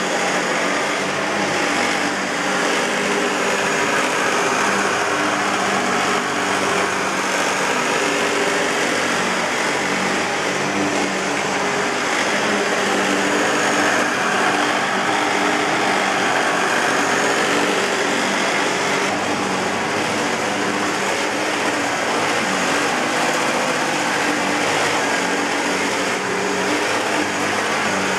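Hoover WindTunnel Self-Propelled bagless upright vacuum cleaner running steadily, motor whine over airflow noise. Its belt tensioner has a bad bearing.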